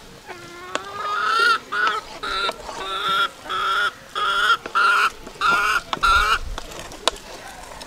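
A hen cackling: one longer call, then a run of about ten loud, short repeated clucks, roughly two a second, stopping about six seconds in. A single sharp tap follows near the end.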